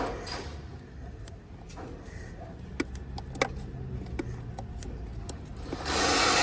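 Scattered sharp plastic clicks and knocks as a stuck ignition coil pack is twisted and worked in its well on a BMW straight-six engine, with a louder rushing sound for about a second near the end.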